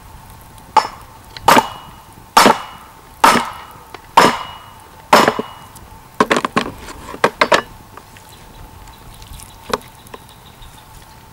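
An axe striking a wooden board laid over a raw chicken: six heavy wooden knocks about a second apart, beating the bird flat and breaking its joints. They are followed by a quick run of lighter wooden knocks and one last knock near the end.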